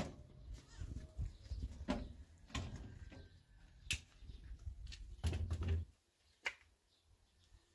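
A metal-framed door being handled and shut, with scattered sharp knocks and clicks over a low rumble, and a heavier low thump a little past five seconds in.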